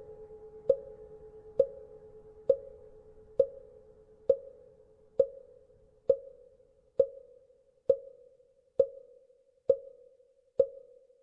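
Wooden fish (mõ) struck at a steady pace, a little faster than once a second, each stroke a hollow pitched knock with a short ring. Under the first half, the lingering hum of a Buddhist temple bell fades away.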